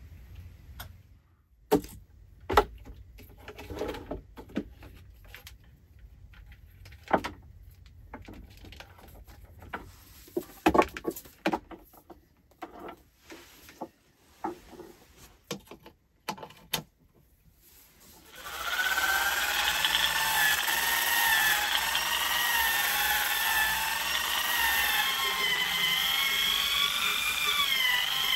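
Scattered clicks and knocks, then about two-thirds of the way in a power drill fitted with a sanding disc starts sanding a rough wooden board, its motor whine wavering up and down in pitch as it works.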